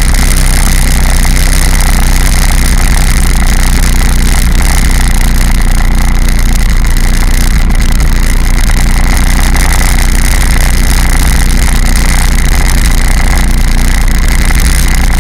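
Personal watercraft engine running steadily under way, mixed with heavy wind rush on the bow-mounted microphone; loud and unbroken.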